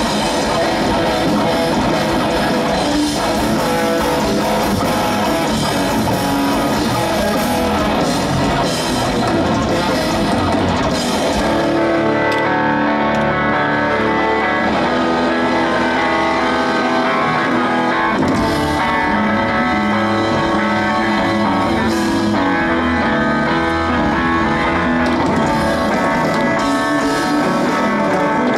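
Rock band playing an instrumental passage live: electric guitars over bass and drum kit, loud through the stage amplifiers. About twelve seconds in, the guitars move into longer held notes.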